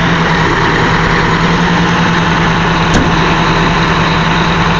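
Big Bud 450 tractor's large diesel engine running steadily.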